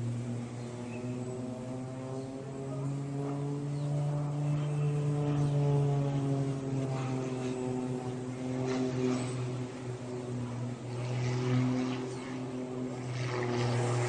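Propeller aerobatic plane's piston engine droning overhead, its pitch rising and falling slowly as the plane manoeuvres.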